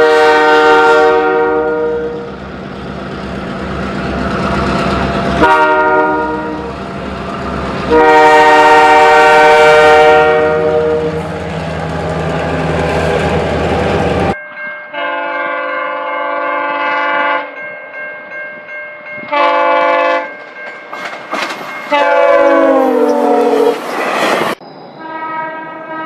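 Train horns sounding several multi-tone chord blasts. In the first half a horn blows over the low, rhythmic rumble of a moving train. After an abrupt change about 14 seconds in, a different horn gives several blasts: a few short toots, then a longer one that falls in pitch as the train passes.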